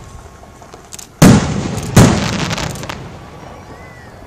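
Two aerial firework shells bursting with loud booms about three-quarters of a second apart, about a second in. A crackling tail follows and fades away over the next second.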